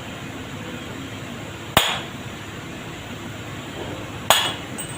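Two sharp hammer blows on metal, about two and a half seconds apart.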